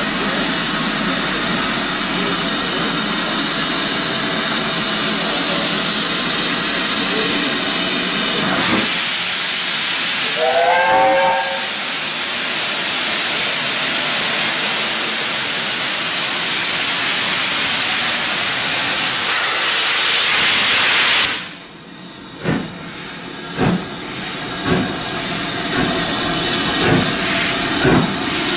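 Steam locomotive letting off a loud, steady hiss of steam that cuts off suddenly about two-thirds of the way through, followed by a string of separate puffs that grow louder. A short rising tone sounds about ten seconds in.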